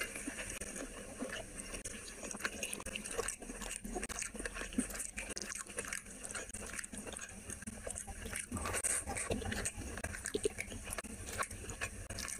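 Rice and curry being mixed by hand on a plate, with chewing: irregular wet squishing and short smacking clicks.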